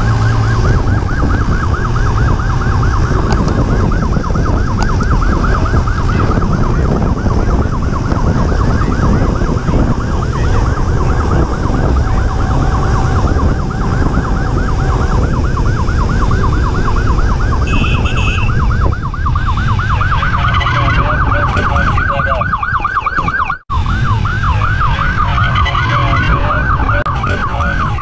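Police motorcycle siren on a fast yelp, sweeping up and down several times a second, over heavy wind rumble from riding at speed. The sound drops out for an instant near the end.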